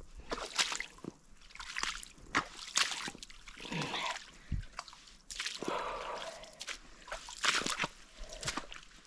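Wellington boots wading through a deep rainwater puddle, each step splashing and sloshing in the water.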